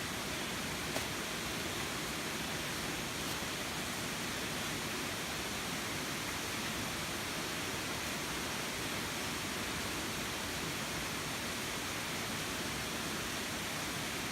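Waterfall in the jungle: steady rushing of falling water.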